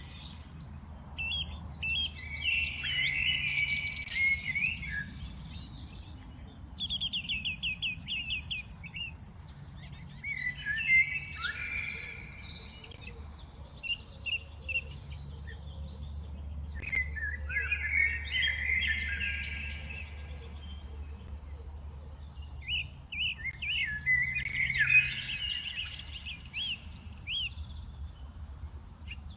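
Several small birds chirping and trilling together in bursts every few seconds, over a steady low rumble.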